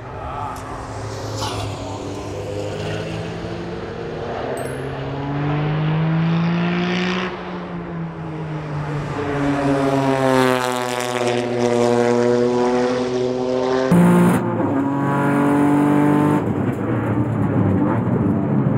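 Tuned Toyota GR Yaris race car's turbocharged 1.6-litre three-cylinder engine, fitted with a bigger turbo for about 500 hp, accelerating hard. Its pitch climbs, drops at a gear change, climbs again, then falls away as the car passes. The sound changes abruptly about two-thirds of the way through, and the car carries on under power.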